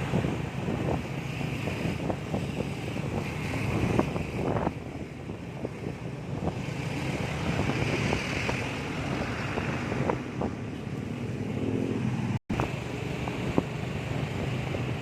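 Vehicle engine running steadily with wind buffeting the microphone and scattered small knocks, in slow traffic. The sound drops out for an instant about twelve seconds in.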